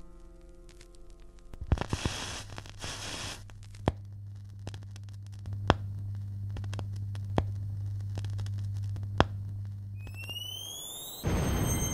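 A piano note fades out, then a record player runs with the stylus on the vinyl: a steady low hum and surface crackle, with a sharp click about every two seconds. Near the end, rising electronic sweeps and a whoosh come in.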